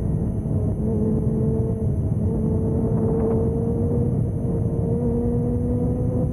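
Yamaha sport motorcycle's engine running while riding, its note climbing slowly and steadily as the bike gathers speed, over a low rumble of wind and road noise.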